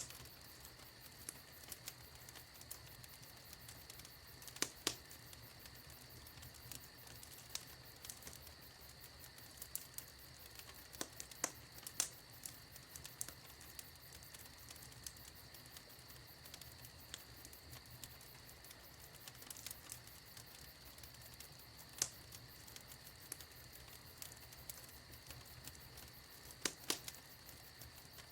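Wood fire in a fireplace crackling faintly: a steady low hiss with frequent small ticks and a handful of louder pops.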